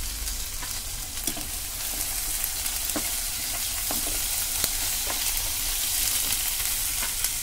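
Hot oil sizzling steadily in a kadhai as cumin seeds and ginger-garlic paste fry, with a spatula stirring and scraping the pan, giving scattered short clicks and taps.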